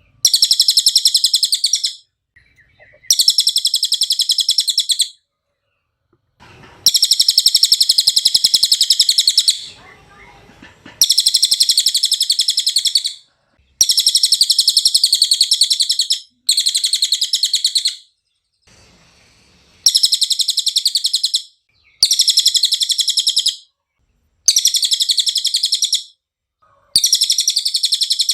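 A cililin singing: high, rapid trilling phrases of one to three seconds each, repeated again and again with short pauses between.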